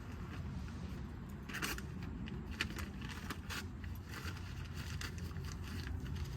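Campfire crackling and popping, with a cluster of sharp snaps a couple of seconds in, over a steady low rumble.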